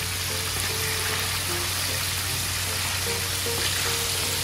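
Hot oil sizzling and fizzing hard around pieces of karaage chicken in their second fry at 170 °C: a steady hiss as the moisture that has seeped into the coating boils off, crisping it.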